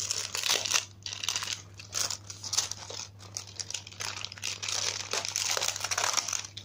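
Plastic courier packaging crinkling as it is handled and unwrapped by hand, in irregular bursts with brief pauses.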